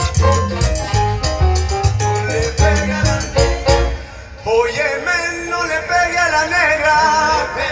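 Live salsa band playing, with heavy bass notes, piano and percussion in a driving rhythm. About four seconds in, the full band breaks off and a wavering melodic line carries on over lighter backing.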